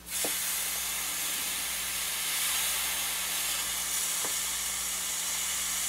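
Hot soldering iron tip at 300 °C pressed into a wet sponge: the water sizzles off as steam in a steady hiss that starts suddenly. The tip cools as the water boils away.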